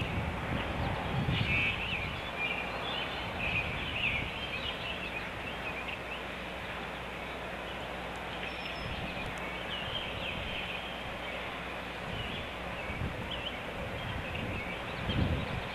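Great blue heron nestlings making a mewing or snoring sound: many short, high calls, repeated throughout. Beneath them runs a low rumble that swells near the end.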